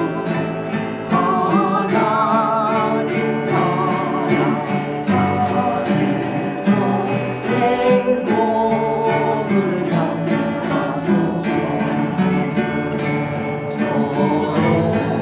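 Acoustic guitar and harp playing a slow worship song, a steady stream of plucked notes under a melody held in long notes with vibrato.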